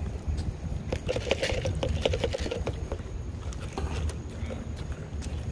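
Handling noise on a handheld phone microphone: rubbing and knocking against clothing over a steady low rumble, with a flurry of rattling clicks between about one and three seconds in.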